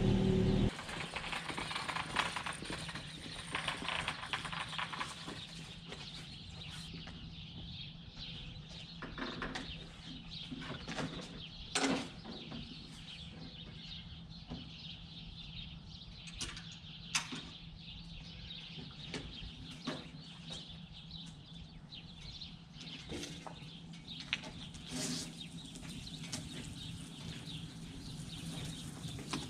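A loud steady sound with a pitched hum cuts off suddenly within the first second. After that come sparse clicks and knocks as a snowmobile dolly is handled and moved, over a quiet low hum.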